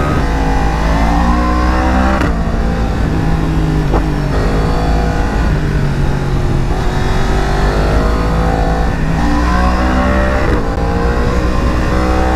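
Yamaha R1 motorcycle's crossplane inline-four engine heard from the rider's seat, revving up and easing off again and again while riding. The pitch drops suddenly at gear changes, about two and four seconds in.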